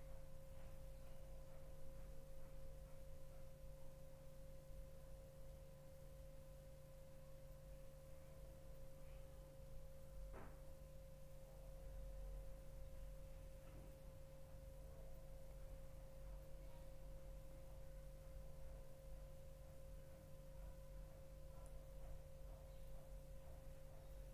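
Near silence: room tone with a faint, steady, even-pitched hum and one faint tick about ten seconds in.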